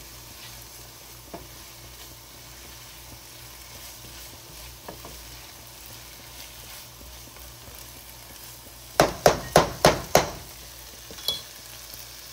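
Diced onions and red peppers sautéing in oil and butter in a nonstick frying pan: a steady low sizzle while a spoon stirs them. About nine seconds in, five sharp knocks in quick succession are the loudest sounds.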